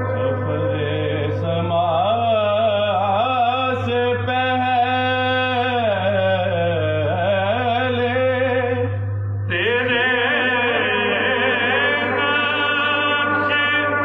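A man singing a naat solo and unaccompanied into a microphone, in long drawn-out phrases with gliding ornaments. He takes a short breath about nine and a half seconds in, and a steady low hum runs underneath.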